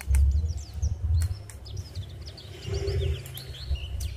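Small birds chirping in the background, many short, quick whistled notes, over a steady low rumble that swells at the start and again about three seconds in, with a few sharp clicks.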